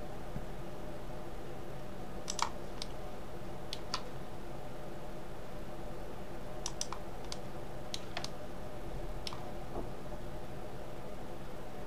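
Sparse, irregular clicks of a computer mouse and keyboard, about a dozen over the stretch, over a steady low electrical hum.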